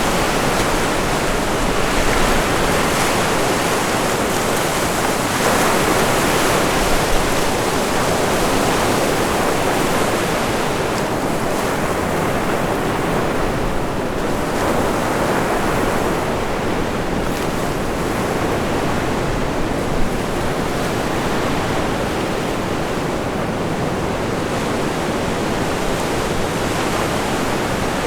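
Ocean surf washing in continuously, a steady roar that swells and eases over several seconds, with strong wind buffeting the microphone.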